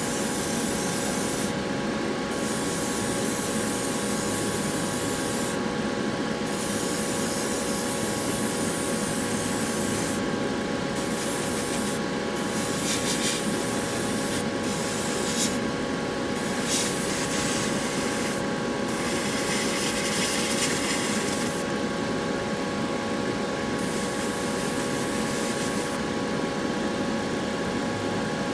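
Spray painting: paint hissing from the nozzle in repeated bursts with short pauses, over a steady hum.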